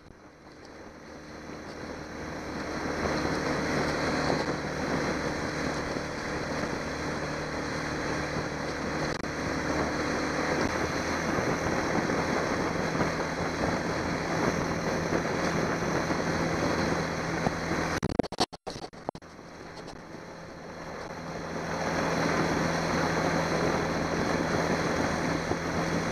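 Johnson 90 hp V4 two-stroke outboard running steadily with the boat under way, under wind on the microphone and water rushing past the hull. The sound grows louder over the first few seconds, cuts out briefly about two-thirds of the way through, then builds back up.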